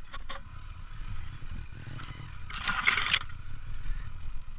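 Motorcycle engine running while the bike is ridden along a bumpy dirt track, heard as a steady low rumble. A brief louder scraping hiss comes about two and a half seconds in.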